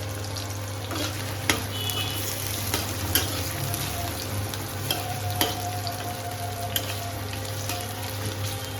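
Onion, chilli, garlic and ginger sizzling as they fry in ghee while being stirred, with a few sharp clicks of the spoon against the pan.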